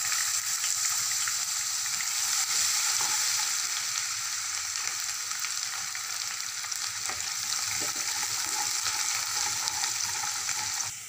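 Urad dal sizzling steadily as it fries in hot oil with mustard seeds, cumin and curry leaves in a nonstick kadai, stirred with a wooden spatula.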